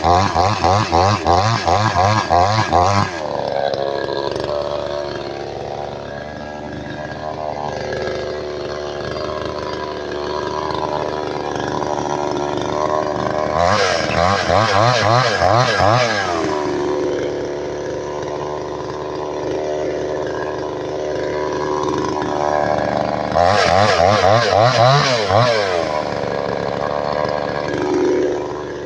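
New chainsaw's small engine revved hard three times, near the start, about halfway through and again near the end. Between the revs it drops back to a lower steady run.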